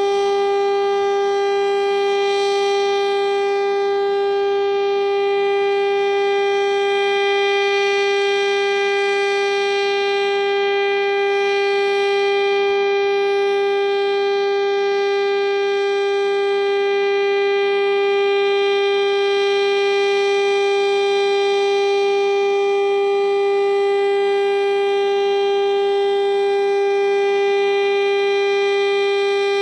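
STL-10 outdoor tornado warning siren sounding a steady, unwavering tone during a siren test.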